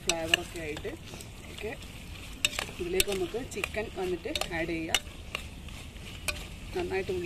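A metal spoon stirring and scraping a thick onion-tomato masala in a stainless steel pressure cooker pot, with irregular clinks of the spoon against the pot. The masala sizzles lightly as it fries, cooking down before chicken is added.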